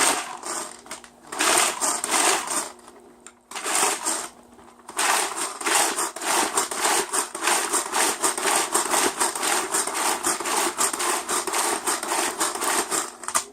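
Tupperware Power Chef pull-cord chopper being pulled again and again, its spinning blades rattling and chopping whole almonds. A few pulls with short pauses, then a steady run of quick pulls, about three a second.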